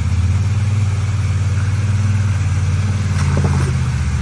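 Polaris RZR side-by-side's engine running at a steady, low speed, with a small change in pitch about three seconds in.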